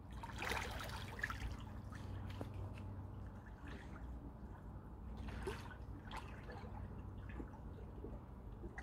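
Pool water splashing and lapping softly as a person swims through it, in irregular strokes over a steady low hum.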